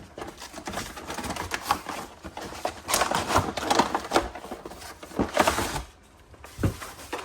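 Packaging of a trading-card collection box being ripped open: plastic wrap tearing and crinkling, with dense crackling and tapping and two louder tearing spells, before it eases off near the end.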